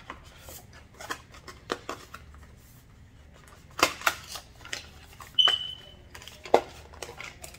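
Cardboard packaging being handled: a box insert lifted out and paper flaps opened, with scattered taps, knocks and rustles. A brief high squeak about five and a half seconds in.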